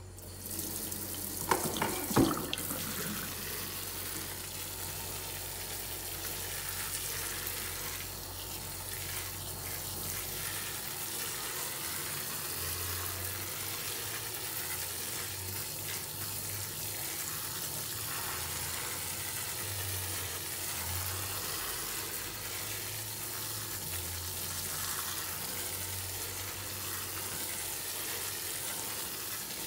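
Kitchen faucet's pull-down sprayer running steadily, spraying water onto potting soil in a pot set in a stainless steel sink. The soil of a newly planted bulb is being watered in. Two sharp knocks come near the start as the water begins.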